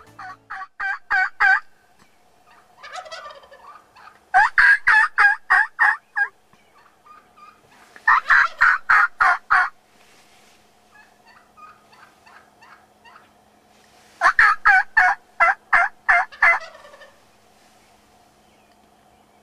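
Wild turkey calling: four runs of quick, loud, evenly spaced notes, each run lasting about one and a half to two and a half seconds, with quiet pauses between.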